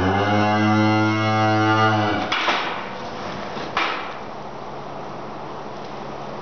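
Heifer mooing once, a low call of about two seconds that dips slightly in pitch as it ends. Two short noisy bursts follow, about a second and a half apart.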